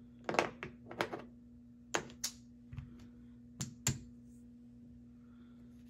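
Clay casino chips clicking together as they are set down and stacked on a felt blackjack table: a series of sharp clicks, some in pairs, over the first four seconds.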